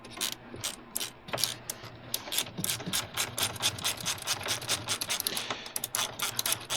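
Hand ratchet with a T25 Torx bit clicking rapidly as it turns out a small Torx screw, several clicks a second.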